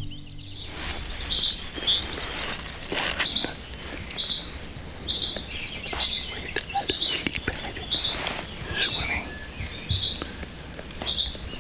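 Birds chirping outdoors, a short high call repeated one or two times a second, with scattered faint clicks and rustles over steady background noise.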